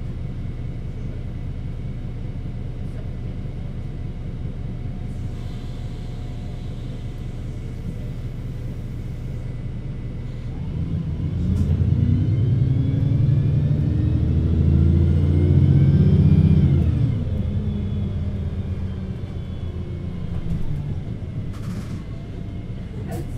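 VDL Citea LLE 120 city bus idling at a stop with a steady low engine hum. About eleven seconds in, a louder engine sound swells with rising pitch for some six seconds, then falls away and the idle hum remains.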